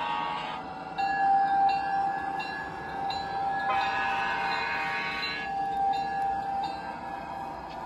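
G-scale GP38 model diesel locomotive's onboard RailPro sound unit playing a multi-tone diesel air horn, with one long blast starting about four seconds in.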